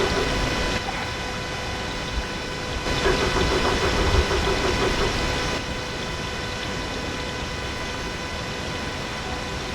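Heavily amplified night-time ambience: a steady hiss with a faint constant electronic whine. A faint wavering call rises out of the hiss at the very start and again from about three to five and a half seconds in.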